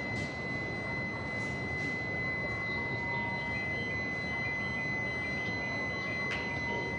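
A steady high-pitched electronic warning tone from a Shinkansen station platform, sounding continuously over the low rumble of the platform and trains, with a few faint clicks.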